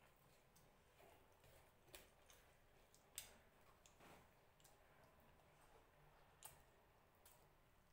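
Near silence with faint, scattered sharp clicks from eating rice and fish by hand: fingers working the rice on the plate and mouth clicks while chewing.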